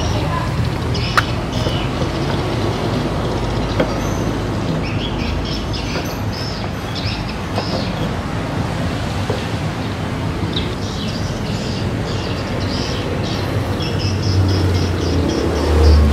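Steady low rumble and hiss of background noise, with a few faint clicks from a circuit board and its heatsink being handled in the first few seconds.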